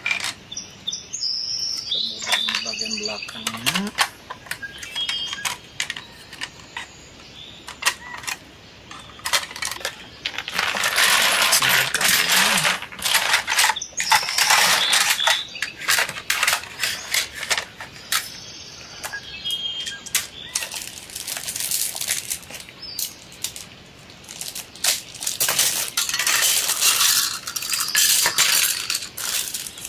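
Hard plastic playset parts clicking and clattering as they are handled and fitted together, with denser stretches of rattling and rustling twice in the middle.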